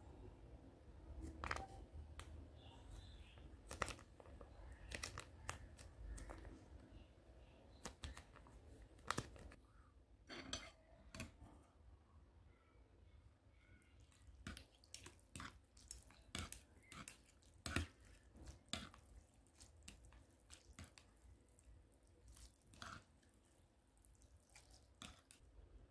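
A metal spoon and chopsticks clicking and tapping against a ceramic bowl as instant noodles are stirred and lifted in their broth, with soft wet sounds of the noodles. The clicks are sharp and irregular, a few of them much louder than the rest.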